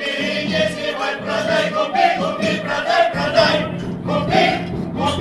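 A group of voices singing a chanted song with instrumental backing; a steady low note joins about three seconds in.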